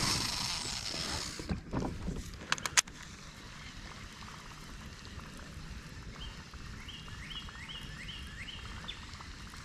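A cast with a baitcasting rod and reel: a rushing hiss of line running off the spool in the first second, then a few sharp clicks, then a faint steady hiss as the topwater lure is fished back. Over the last few seconds, a run of about five short rising chirps, roughly three a second.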